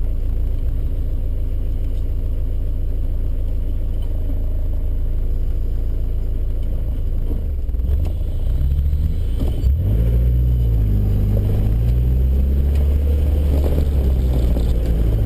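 Land Rover Discovery 1's 300Tdi 2.5-litre four-cylinder turbodiesel, heard from inside the cabin. It runs steadily at low revs at first, then revs up and down from about eight seconds in as the vehicle pulls away over rough ground. There is a single knock about ten seconds in.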